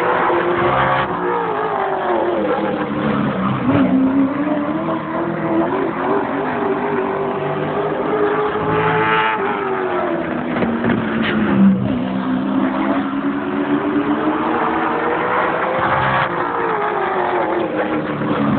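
A race car engine running laps on a short oval. The engine climbs in pitch under throttle along the straights and drops off into the turns, in a long rise-and-fall that repeats about every seven to eight seconds.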